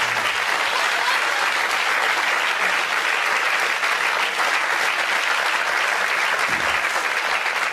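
Audience applauding steadily: dense, even clapping from a full house.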